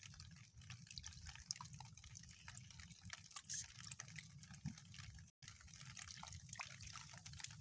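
Faint, scattered drips and small water ticks in a water-filled mud hole, over a steady low hum.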